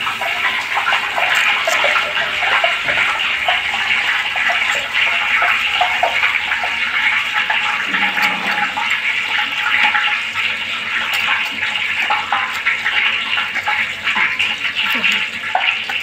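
Hot oil sizzling steadily as battered food deep-fries, a dense hiss full of small crackling pops.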